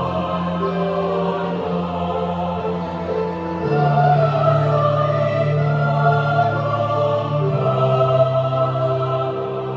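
Youth choir singing in several parts, holding long sustained chords that shift to new notes about every three to four seconds.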